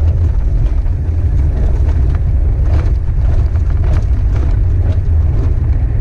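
Toyota Hilux driving along a gravel track, heard from inside the cab: a steady low rumble of engine and tyres, with faint scattered ticks of gravel.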